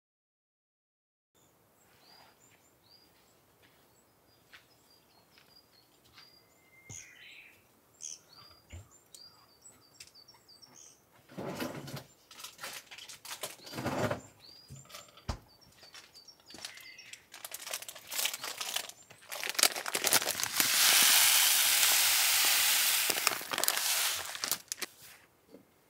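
Birds chirping faintly, with some handling noises in the middle. Then, about twenty seconds in, sesame seeds are poured into a ceramic suribachi grinding bowl, making a dense rattling hiss that lasts about three seconds.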